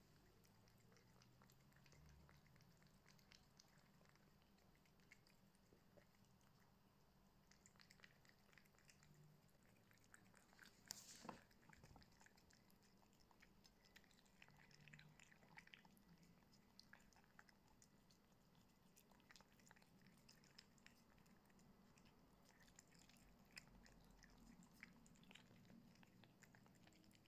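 Faint wet chewing and lip-smacking of cats eating chunks of tuna off a plate, as scattered soft clicks, with one sharper click about eleven seconds in.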